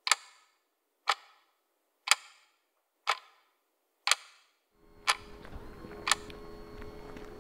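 Loud, sharp clock ticks, one each second, seven in all, marking a countdown. About five seconds in, a steady background hum comes in under the last two ticks.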